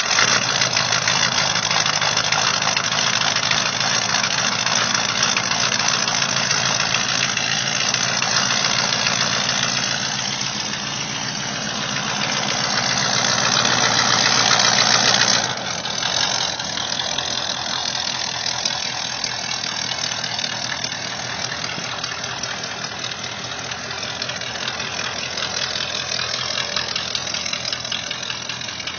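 An old carbureted pickup truck's loud engine running at idle, heard from the exhaust at the rear of the truck. It grows gradually louder until about halfway through, then drops back suddenly.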